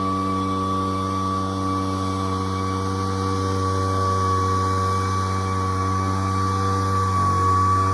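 Poulan Pro backpack leaf blower's two-stroke engine running at a steady speed, its drone topped by a steady high whine; the pitch wavers briefly near the end.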